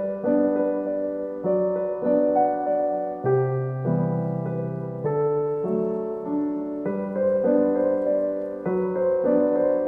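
Background piano music: single notes struck in a slow melody over held bass notes, each note fading after it is struck.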